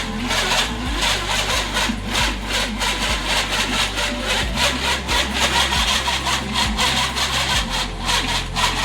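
Electric dough-kneading machine running while kneading atta dough: a steady motor hum under a rhythmic scraping as the dough is worked in the bowl.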